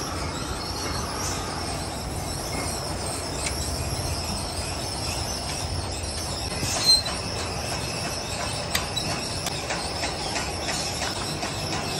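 Motor-driven coil-winding spindle turning a spool as insulated wire is wound onto it, giving a steady mechanical rumble with a high, even whine. A sharp click comes about seven seconds in, followed by lighter ticks.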